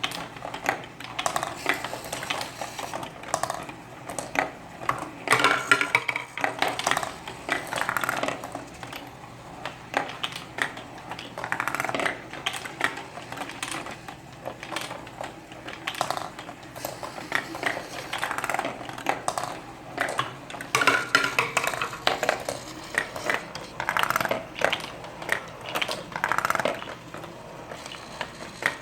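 Small marble-transfer machine of an automation kit running: marbles rolling and clattering along its track while the gripper mechanism picks them up and carries them back to the start, giving irregular bunches of clicks and rattles.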